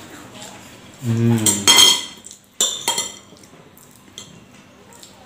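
Metal spoon scraping and clinking against a ceramic bowl while eating rice, with a few sharp clinks. About a second in there is a brief low vocal sound, followed by a louder scrape.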